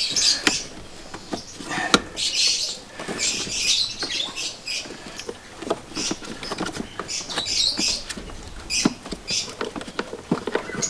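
Rubber heater hoses being worked by hand onto the pipes of a new heater valve: scattered short squeaks and rubbing of rubber, with irregular light clicks and knocks from the fittings.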